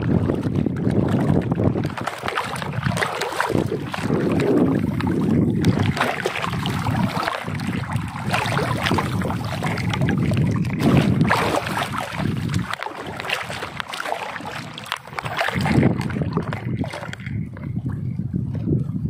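Shallow seawater sloshing and splashing, with wind buffeting the microphone.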